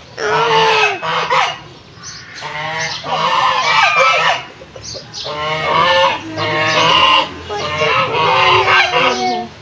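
Chickens clucking and calling, several overlapping calls at a time.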